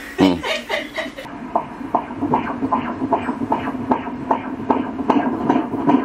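Unborn baby's heartbeat played through an ultrasound machine's Doppler, a fast, even pulse of about two and a half beats a second, starting about a second in.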